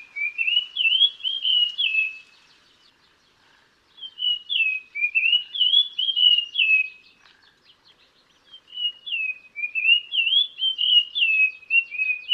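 Sri Lanka dull-blue flycatcher singing: phrases of sweet, high whistled notes that slide up and down, each phrase lasting about three seconds, with short pauses between them.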